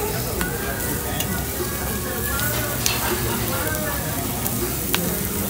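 New York steak and shrimp sizzling steadily on a hot Korean BBQ tabletop grill, with a few sharp clicks of metal tongs on the grill.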